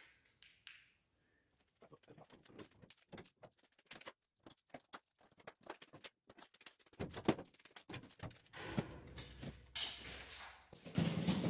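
Scattered metallic clicks, knocks and clanks of steel being handled: locking clamps being taken off a steel trailer frame and carried. They grow denser and louder in the last few seconds.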